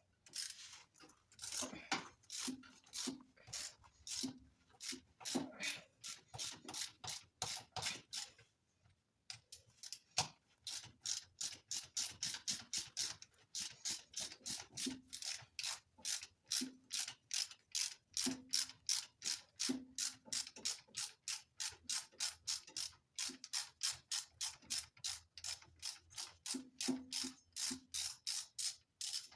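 Hand socket ratchet wrench clicking steadily, about three or four clicks a second, as a fastener is turned out; the clicking stops briefly about eight seconds in, then carries on.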